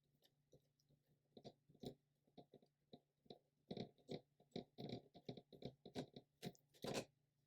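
Faint, irregular clicks and knocks of a pedestal fan's blade assembly being turned on its threaded insert with a pick and worked off the motor shaft. The clicks come thicker after about a second and a half, with the loudest knock near the end.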